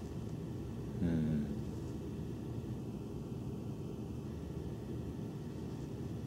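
Steady low rumble of background noise, with a brief pitched sound lasting about half a second, about a second in.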